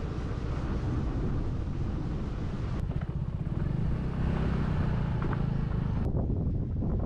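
A motor vehicle riding along a road: steady low engine and road noise with wind on the microphone.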